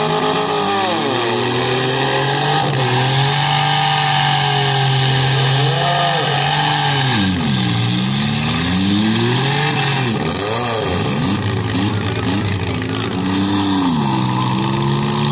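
Demolition-derby compact cars' engines revving hard and dropping back over and over, their pitch swinging up and down every second or two as the cars push and spin their tires, over a steady hiss.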